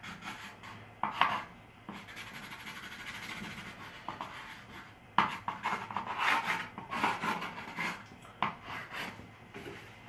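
Metal palette knife scraping and smearing oil paint across a canvas in short, irregular strokes, with a busier run of strokes about halfway through.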